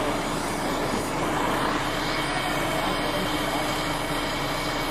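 Steady hum and hiss of TIG welding equipment at work on a truck's metal fuel tank, with a faint steady tone and no sharp knocks.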